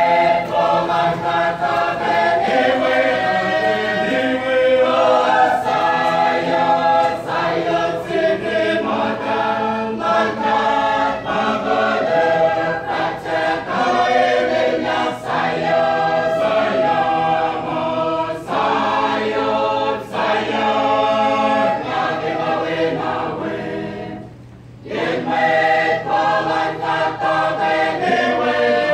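A choir of mixed men's and women's voices singing a hymn together, with a short break about three quarters of the way through before the singing resumes.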